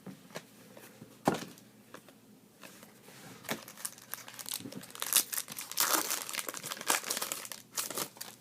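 Plastic packaging crinkling and rustling as it is handled, with a sharp click about a second in and denser crinkling through the second half.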